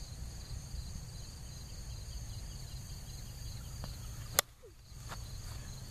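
A plastic wiffle ball bat strikes a pitched wiffle ball once, a single sharp crack a little past four seconds in. Insects trill steadily in the background over a low rumble.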